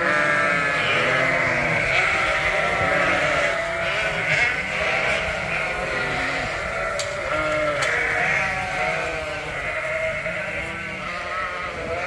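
A flock of Dorset ewes and lambs bleating, many calls overlapping without a break.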